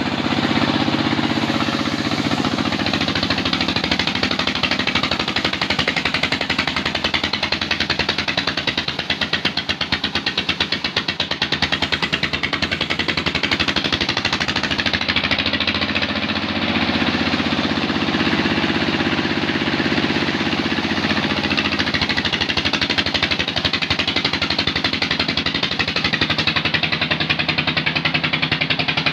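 A single-cylinder diesel engine mounted on a jeep runs hard with a fast, steady knock while it drives a saw cutting acacia logs into planks. The engine note swells briefly near the start and again about halfway through as the load changes.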